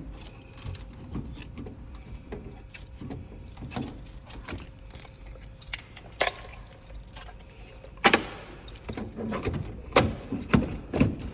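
Hands handling small parts and cables inside a vending machine cabinet: scattered clicks, rattles and knocks, with sharper knocks about six, eight and ten seconds in.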